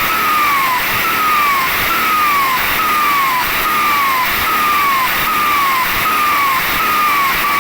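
A turbocharger with a comb ("pente") in its intake, "singing" over a steady hiss. A short falling whistle repeats about once a second.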